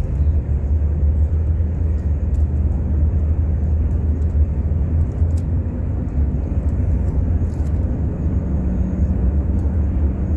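Steady low rumble, with faint quick clicks of a Rubik's cube being turned.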